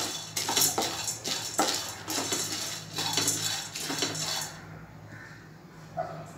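Split roasted gram dal (futane dal) being dry-roasted and stirred with a wooden spatula in a dry nonstick kadhai: quick rattling, scraping strokes of the grains across the pan, which stop about four and a half seconds in. A low steady hum runs underneath.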